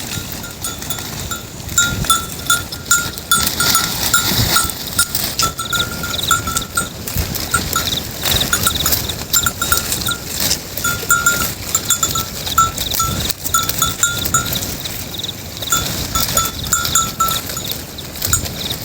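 Bells worn by grazing goats clinking irregularly, many short rings in a row, over a steady rustling background.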